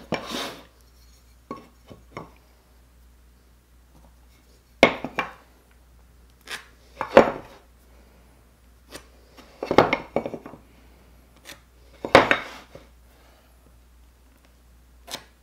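A small metal layout square being set down, shifted and slid along a wooden blank, with pencil strokes drawing lines: scattered light knocks, clinks and short scrapes a second or two apart.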